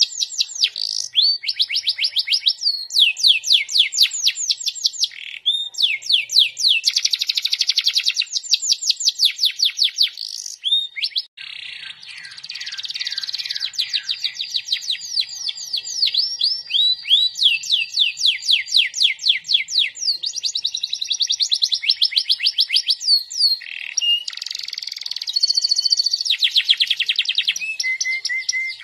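Domestic canary singing a long, continuous song of fast trills, each made of rapidly repeated sweeping notes, with a brief pause about eleven seconds in.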